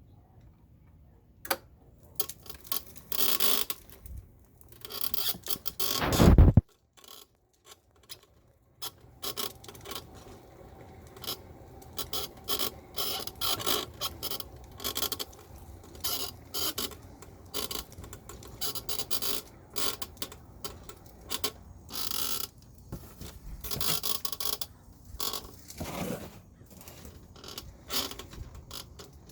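Golden Technologies Buzzabout power wheelchair creaking and clicking over and over, the sound of a dry seat post squeaking, which greasing later cured. There is one loud knock about six seconds in.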